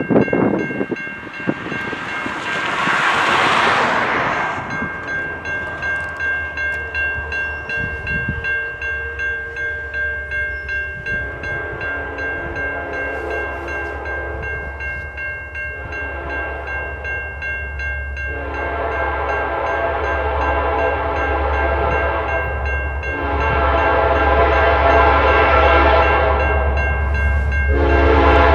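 A diesel locomotive's air horn sounds four long blasts, the first about eleven seconds in, each a chord lasting a few seconds. A low engine rumble grows louder beneath it near the end, and a steady high ringing tone runs underneath throughout.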